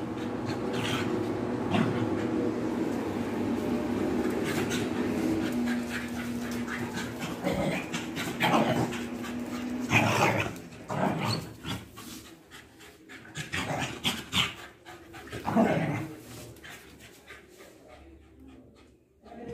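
Two street dogs play-fighting: a long stretch of steady, droning growling, then a series of short snarls and yaps through the middle, which die away near the end.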